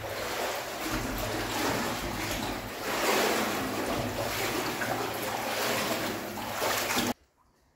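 Water sloshing and splashing around a person's legs as he wades through deep standing water in a concrete tunnel. The sound cuts off abruptly near the end.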